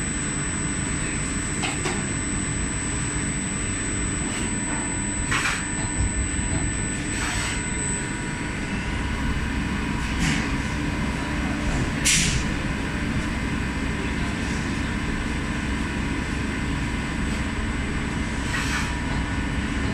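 DMG CTX 310 CNC lathe turning a brass bushing: steady spindle and machine running noise with a constant high whine, broken by several brief hisses, the loudest about twelve seconds in.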